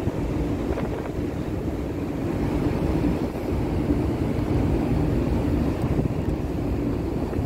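Steady wind buffeting the microphone on a cruise ship's open top deck while the ship is under way, with a low rumble underneath.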